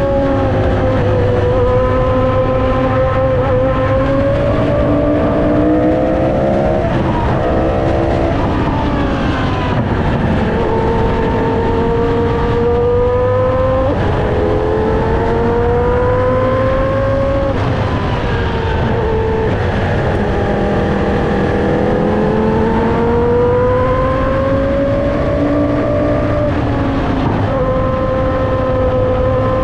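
Williams FW14B Formula 1 car's Renault 3.5-litre V10 engine running hard, its pitch climbing through each gear and dropping sharply at every gear change, again and again.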